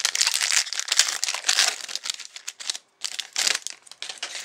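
Foil trading-card pack wrapper crinkling as it is handled, dense and crackly for nearly three seconds, then a brief pause and one more short burst.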